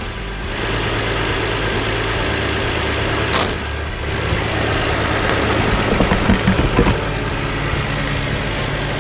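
Hyundai Entourage 3.8-litre V6 engine idling steadily, now staying running with its newly replaced MAF/IAT sensor. A sharp click comes about three and a half seconds in, and a few light knocks follow around six to seven seconds in.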